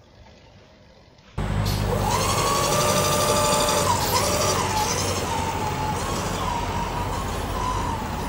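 Faint at first, then about a second and a half in a sudden switch to loud rumbling noise with a wavering whine from a homemade electric motorcycle's motor as it is ridden.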